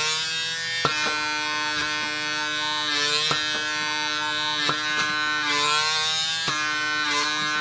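PMD personal microdermabrasion device's suction motor humming steadily, its pitch sagging and recovering a few times as the head is moved over the forehead, with a few light clicks. On the forehead the head hardly holds suction.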